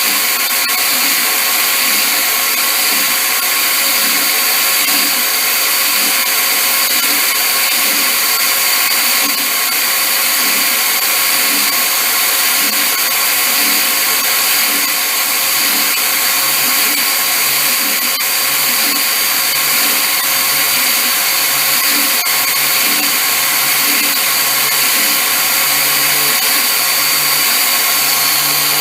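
An electric power tool's motor running steadily without a break, with a faint regular pulsing underneath.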